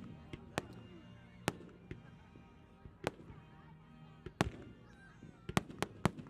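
Aerial fireworks shells bursting with sharp, irregularly spaced bangs, the reports coming in a quick cluster near the end.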